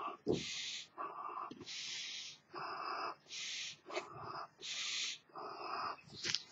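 A person blowing up a large balloon duck by mouth: quick breaths drawn in alternate with puffs of air blown into the balloon, about four breaths in a steady rhythm.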